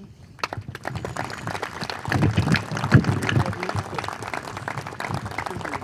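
Audience applauding, a dense run of claps that starts about half a second in, with a few voices mixed in.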